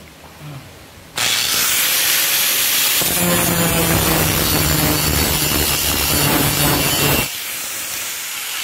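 Electric angle grinder switched on about a second in and running free, then its grinding disc pressed onto a weld on a steel square tube from about three seconds in, grinding the metal with a loud rasping noise and a steady hum. Near the end the disc is lifted off the steel and the grinder keeps running, quieter.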